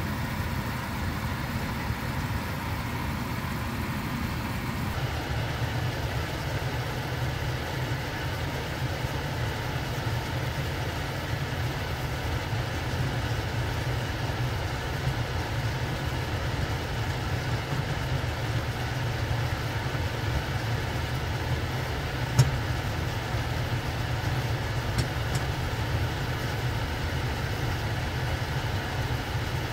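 Pot of konnyaku reducing in a bubbling sauce over a gas burner: a steady low rumble of flame and simmering, with a single light knock about two-thirds of the way through.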